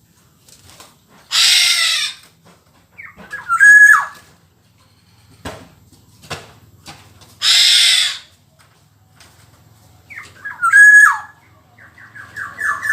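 Black-naped oriole (kepodang) calling: harsh, rasping screeches about a second and a half in and again near the middle, alternating with short whistled phrases a little later each time.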